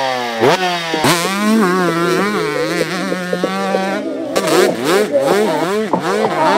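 Yamaha YZ two-stroke motocross bike engine revving, its pitch falling and rising with the throttle, then a quicker run of repeated rises and falls in the second half.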